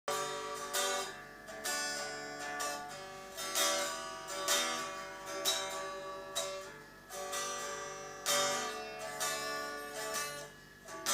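Acoustic guitar strumming slow chords, about one a second, each left to ring.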